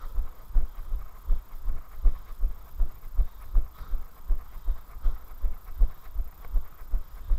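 A runner's footfalls on a tarmac path, heard as low thuds through the body-worn camera at a steady running cadence of about three a second.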